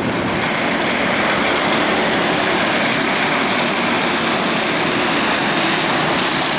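Mini sprint race cars' engines running together as a pack, a steady loud drone.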